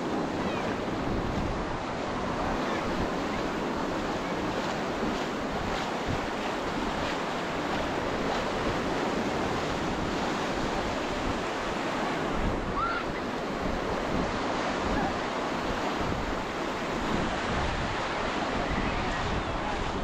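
Surf washing onto a sandy beach, with gusts of wind on the microphone. A faint babble of many people's voices runs underneath, with a brief rising shout about halfway through.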